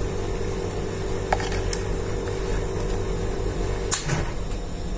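A few light clicks and knocks from a plastic ZKTeco F18 access-control terminal being handled, over a steady low hum and a steady higher tone. The higher tone stops at the loudest click, about four seconds in.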